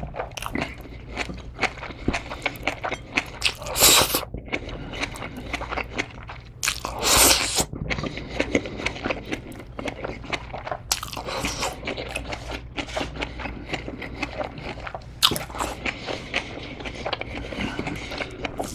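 Close-miked mouth sounds of someone eating grilled bulgogi and kimchi: wet chewing with crisp crunches and a rapid run of small clicks. Twice, about four and seven seconds in, there is a louder slurp, the second one longer.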